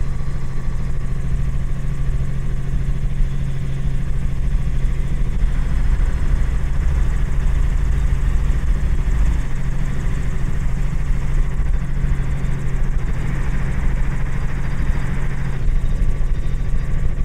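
Robinson R44 helicopter in flight: the steady, unbroken drone of its rotor and piston engine, a constant low hum with a rumble underneath.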